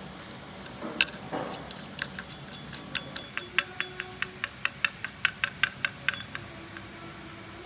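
Sharp, light metallic clicks: one louder click about a second in, then a quick, even run of ticks, about five a second, from about three to six seconds in.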